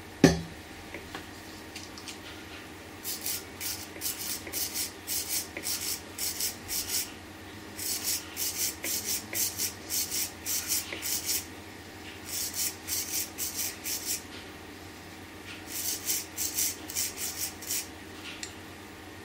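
A small wire brush scrubbing the metal contacts of a plastic dashboard bulb holder to clean off corrosion after a shot of contact-cleaner spray. It rasps in quick back-and-forth strokes, in four spells with short pauses. A single sharp knock comes just after the start.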